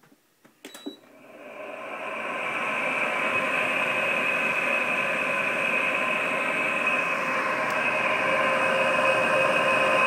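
Frigidaire 5200 BTU window air conditioner switched on with a button click and a short beep, then its fan motor spinning up over about two seconds into a steady whirring run with a high whine on top. The noise comes from the fan motor's bearings, which are worn out.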